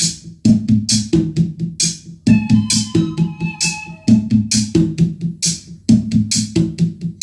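Music with a steady electronic drum beat; its short pattern repeats about every two seconds, and held synthesizer notes join in midway.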